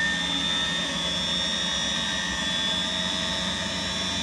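Eberspacher D9W diesel water heater's combustion air fan running flat out with a steady high whine. The fuel has been cut off after a fault shutdown, and the fan runs on to cool the burner and prevent an overheat.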